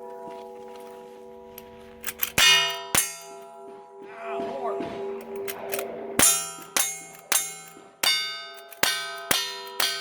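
Cowboy action shooting: a string of gunshots, each followed by the clang of steel targets. Three shots come about two to three seconds in, then after a pause a faster run of about eight shots, roughly half a second apart, from about six seconds on. The steel plates' steady ringing tones hang on underneath throughout.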